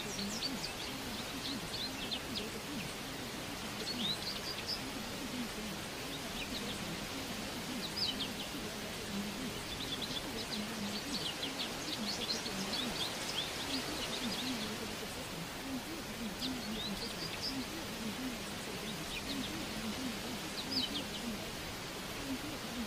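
Small birds chirping in short, scattered calls over a steady background hiss of nature ambience.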